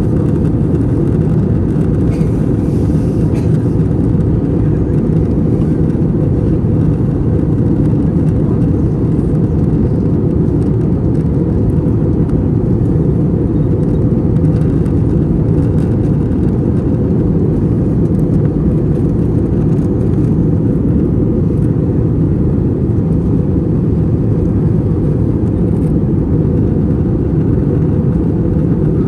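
Steady low drone inside the cabin of an Airbus A321 in flight: its IAE V2500 engines and air rushing past the fuselage.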